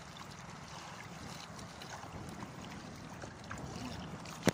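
Lake water sloshing and lapping around people wading chest-deep, with wind buffeting the microphone. A sharp knock right at the end.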